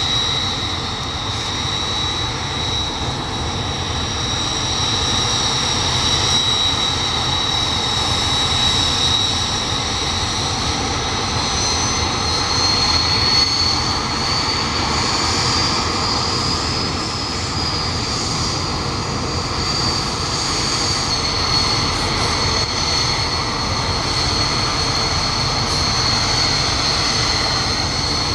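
Mitsubishi T-2 jet trainers' twin turbofan engines idling while parked, a steady high turbine whine made of several tones over a low rumble. About halfway through, the main whine rises slightly in pitch and then settles.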